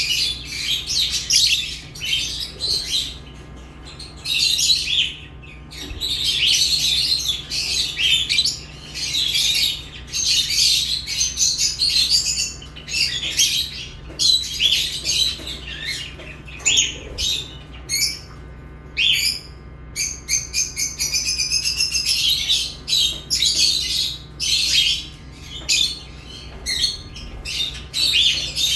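Lovebirds chirping and chattering, a dense run of fast, high-pitched calls in bursts with brief pauses between them.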